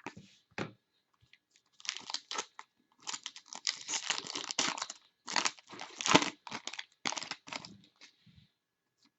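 Foil wrapper of a hockey card pack crinkling and tearing as it is opened by hand, in a run of irregular crackles that stops shortly before the end.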